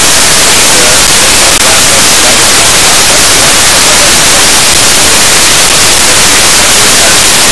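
Loud, steady static hiss from a narrow-FM receiver with its squelch open, tuned to the ISS 2-metre downlink on 145.8 MHz, with no voice coming through.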